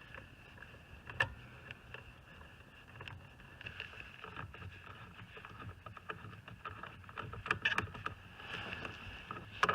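Scattered faint clicks and tool handling of a socket wrench on an extension, loosening the 8 mm bolts that hold a steering-wheel airbag, over a low steady hum.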